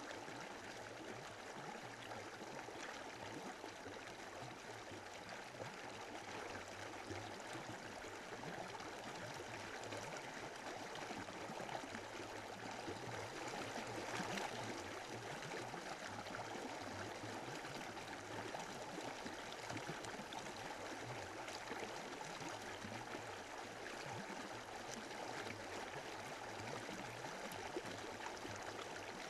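Running water of a stream, flowing steadily.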